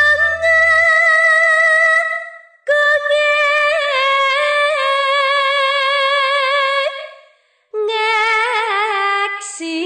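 Classical Javanese sung verse (sinom): a woman's solo voice holding long, wavering notes in three phrases, each broken by a brief pause. A low accompanying instrument note stops about a second in, leaving the voice almost alone.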